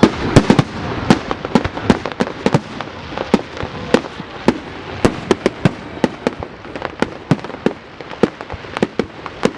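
Fireworks display going off: a rapid, irregular string of sharp bangs and crackling pops, several a second, loudest in the first second or so.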